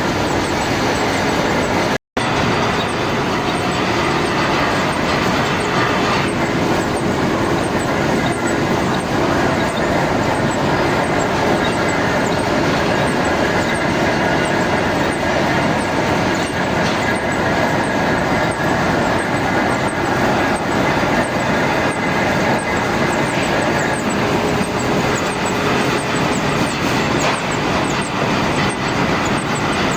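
Machine tool running steadily while machining a new shaft, a continuous mechanical noise with faint steady tones and fine ticks. It breaks off for an instant about two seconds in.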